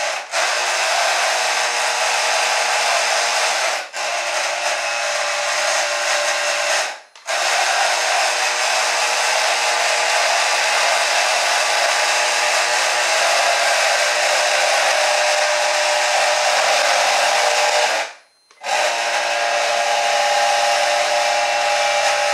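Propellers driven by brushed hair-dryer motors on a small radio-controlled vehicle, run at full power. It is a very noisy, steady rush of air and motor with a steady whine over it. The sound cuts out for a moment three times as the power drops.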